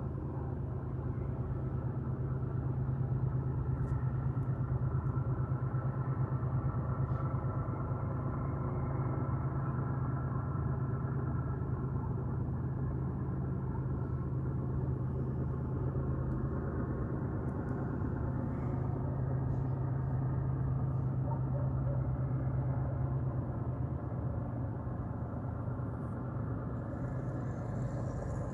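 A steady, continuous low droning hum of unknown origin heard over a city at night, with fainter steady overtones above it. The deepest part of the hum eases off a little near the end.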